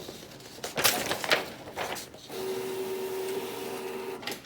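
Sheets of printout paper rustling as they are handled for about two seconds. Then the Canon Pro9500 II inkjet printer's mechanism hums steadily for about two seconds and stops.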